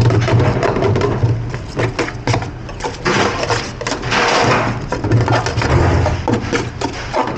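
Busy kitchen clatter: irregular knocks and clicks of hard items over a steady low hum, with a burst of hissing noise about three seconds in.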